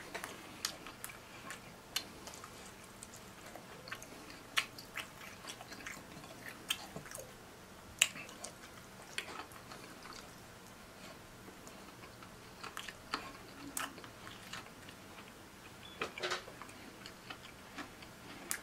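Close-miked chewing of fried chicken meat, with irregular sharp wet mouth clicks and smacks.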